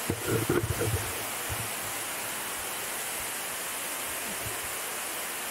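Steady rush of a waterfall, with a short cluster of louder knocks and sounds in the first second.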